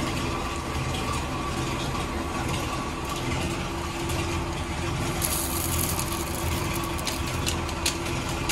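Steady hum of a motor or engine running, with scissors snipping a plastic packet open and the packet crinkling, giving a few sharp clicks late on.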